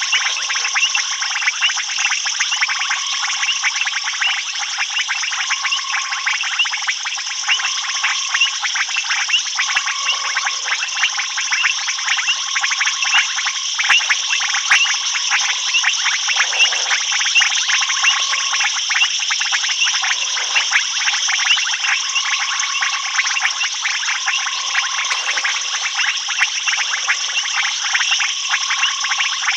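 Night chorus of frogs and insects: a dense, steady high trilling and clicking, with a short tonal note repeating about every two seconds.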